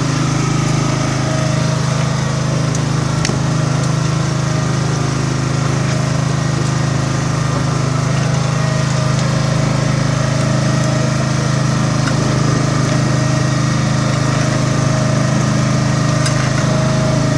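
A small fishing boat's engine running steadily with a constant low hum, with a couple of faint clicks over it.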